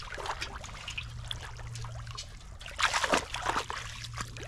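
Shallow muddy pond water splashing and trickling as hands and legs move through it, with water dripping, and a louder splash about three seconds in.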